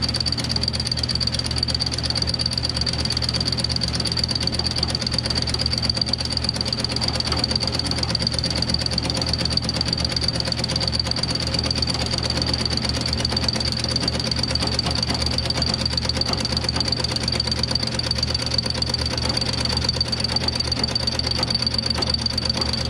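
Milling machine running a fly cutter across the aluminium deck of a Kawasaki X2 jet ski cylinder, taking a light cut to true the gasket surface: a steady machining sound with a constant high whine over a low hum and a fine, fast chatter.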